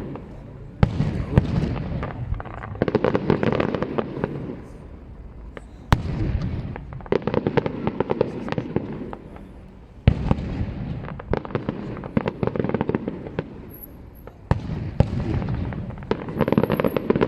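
Aerial fireworks display: shells bursting in a steady stream of volleys, each opened by a sudden bang and followed by dense crackling, with a fresh salvo every few seconds.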